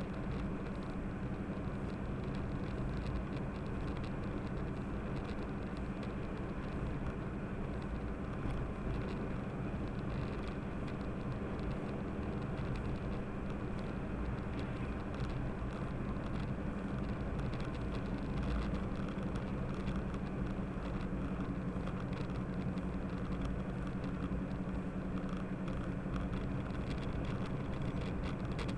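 Car driving at a steady speed, heard from inside the cabin: a steady low engine drone under continuous tyre and road noise.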